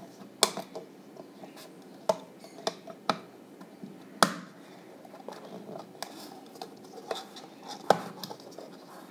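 A knife blade prying at the plastic housing of an emergency LED bulb: a string of sharp plastic clicks a second or two apart, with light scraping between them.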